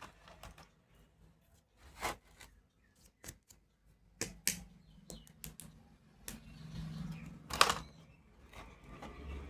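Scattered sharp clicks and taps of hard plastic toy doctor tools being handled, about seven at uneven spacing, the loudest near the end.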